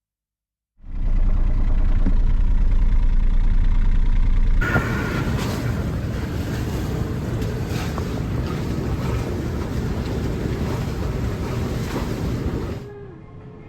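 Wind rumbling on the microphone aboard a moving boat, steady and noisy with no engine note. About four and a half seconds in it changes suddenly to a brighter hiss, and it drops off a little before the end.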